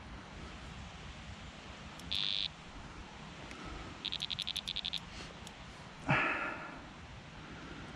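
Electronic carp bite alarm on a rod pod beeping as the line moves across it: one single high beep about two seconds in, then a quick run of about nine beeps around four seconds in. About six seconds in there is a short knock from the rod being handled.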